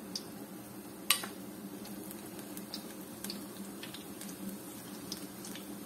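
Spinach-and-gram-flour pakoras deep-frying in hot oil in a wok: a steady sizzle with scattered crackles and pops. One sharp click about a second in is the loudest sound.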